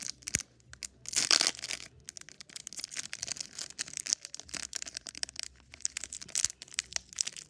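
Foil wrapper of a Pokémon booster pack being torn open and crinkled: a crackly rustle with a louder tearing burst a little over a second in.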